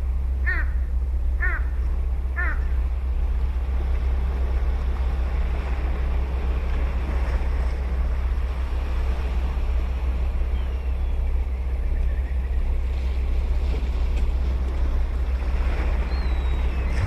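Ocean waves washing steadily on the beach, with a low wind rumble on the microphone. Near the start a crow calls three times, about a second apart.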